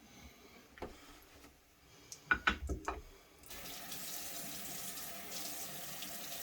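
A few light knocks and clicks, then a water tap comes on about three and a half seconds in and runs steadily.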